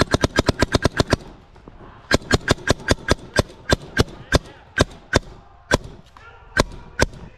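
Mechanical paintball markers firing: a fast string of shots, about eight a second, for the first second or so, then single shots at about three a second for the rest.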